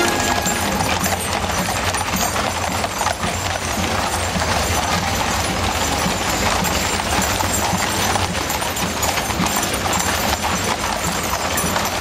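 Many shod horses' hooves clip-clopping on a tarmac street as horse-drawn gun teams pass. Band music fades out in the first second.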